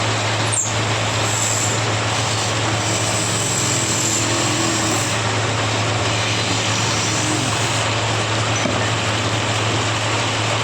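Woodworking machine running steadily: a constant motor hum under an even whirring noise, with no breaks or changes in pitch.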